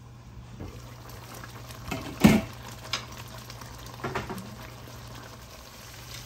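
Kofta curry masala bubbling in the pan as it fries down with its oil risen to the top, over a steady low hum. A few knocks come through, the loudest a little over two seconds in.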